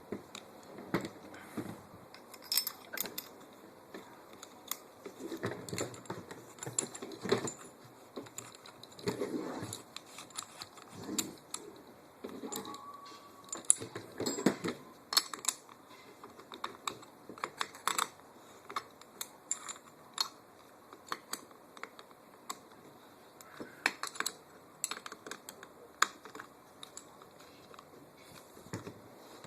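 Irregular small clicks, clinks and knocks of metal airsoft rifle parts being handled and fitted together, as the barrel assembly goes back into the receiver.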